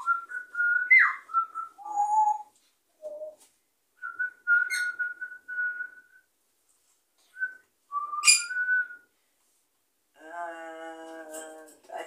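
African grey parrot whistling: a string of short, pure whistled notes with pauses between them, opening with a rising slide and a quick up-and-down sweep, later a run of level notes and a click followed by a whistle about eight seconds in.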